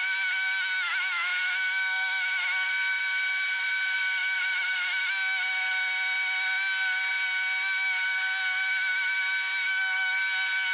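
Walk-behind lawn mower running at a steady whine while being pushed across grass, its pitch dipping briefly about a second in before settling.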